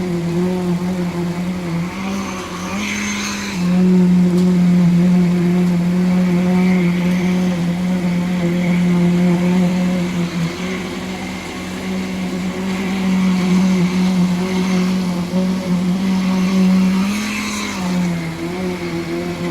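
An engine running steadily at a nearly constant speed, its pitch dipping slightly now and then, with a short hiss about three seconds in and again near the end.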